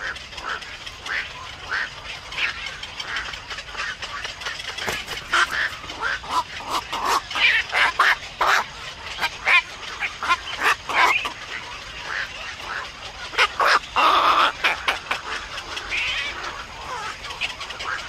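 Black-crowned night herons calling at the nest: many short calls in quick succession, busiest in the middle, with one longer, louder call about fourteen seconds in.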